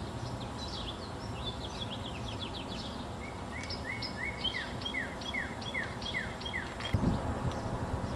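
Songbirds singing, a run of quick falling chirps repeated again and again, over a steady outdoor background noise. A brief low thump about seven seconds in.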